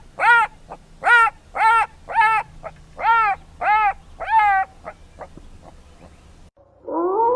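A wild canid giving a rapid series of about eight short, yelping calls, each rising then falling in pitch, roughly two a second, stopping after about four and a half seconds. Near the end a rising tone swells into steady music.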